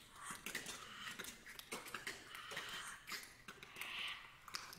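Six singers using extended vocal techniques: scattered soft mouth clicks and breathy, whispery hisses rather than sung notes.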